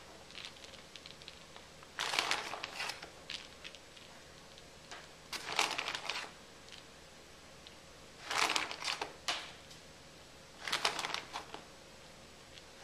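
Shredded mozzarella being handled by the handful for topping a pizza: four short bursts of crinkling, about three seconds apart, as each handful is taken up and scattered.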